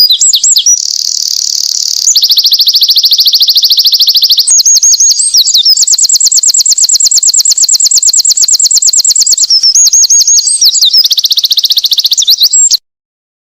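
Winter wren singing one long, fast song of high trills and rapid note runs that change pattern every few seconds, cut off abruptly near the end.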